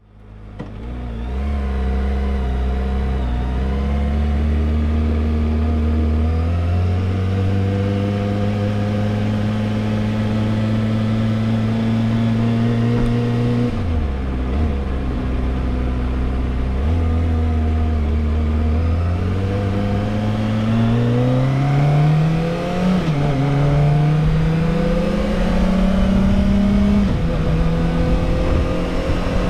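Kawasaki ZX-25R's 249 cc inline-four engine with its stock exhaust, ridden at steady moderate revs. The pitch steps up about seven seconds in, sags and recovers in the middle, then climbs steadily, drops briefly and settles higher near the end.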